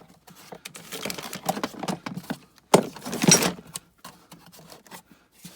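Metal items being handled and set down, an irregular run of clattering knocks and rattles with one louder clank about three seconds in.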